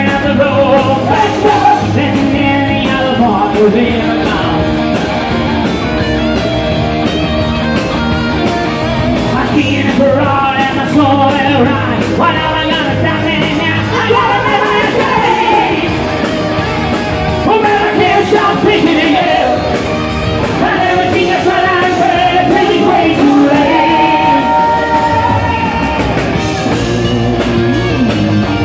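Live rock band playing on stage, with a male lead singer singing into a handheld microphone over the band.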